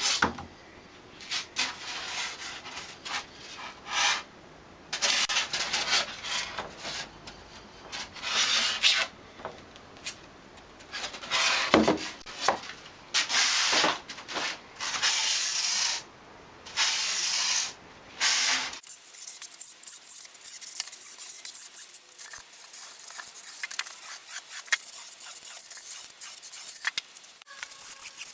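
Hand shaping of a foam block with a Surform rasp: repeated scraping strokes, each up to a second or two long with short gaps between. About two-thirds of the way through, the sound turns abruptly quieter and thinner, a fine scratchy rasping.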